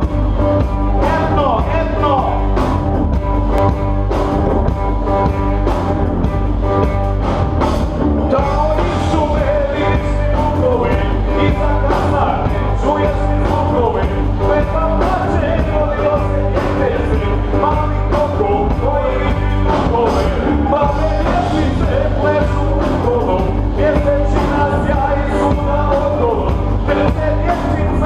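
Loud live band music of drum kit and electric guitar, with a rapper's vocal over it through the PA.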